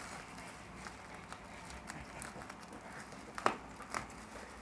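Bubble wrap being handled and cut with small spring snips: faint plastic crinkling with scattered light clicks, and two sharper snips about three and a half and four seconds in.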